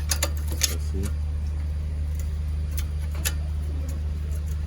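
Scattered metallic clicks and taps of a hand tool working loose the bolts of a petrol generator's broken engine mounting, a few in the first second and two more around three seconds in, over a steady low hum.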